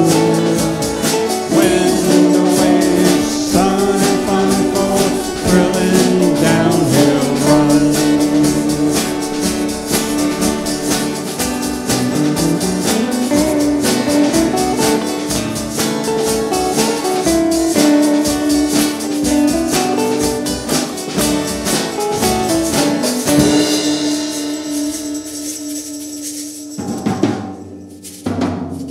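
A song with a drum kit and held melody notes, fading out about three quarters of the way through, followed by a couple of loud separate drum hits near the end.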